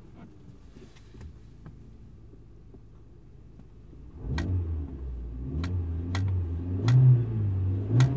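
Audi 1.6-litre four-cylinder petrol engine idling quietly, then revved from about four seconds in, its pitch rising and falling with each press of the throttle, with a few sharp clicks over the revving. The engine is still warming up after a cold start.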